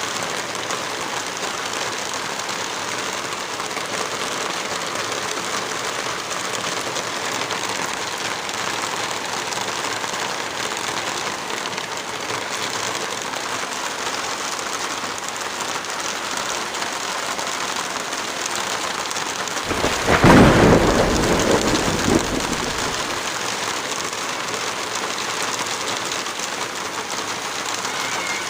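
Steady rain falling, with a single loud clap of thunder about two-thirds of the way through that rumbles on for about three seconds.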